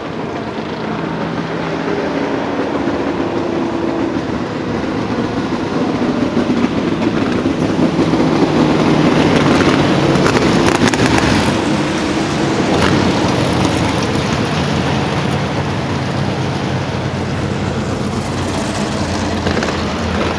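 Engines of several Groundpounder race cars running as they lap the oval, growing louder as the cars pass close by around the middle and then easing off a little.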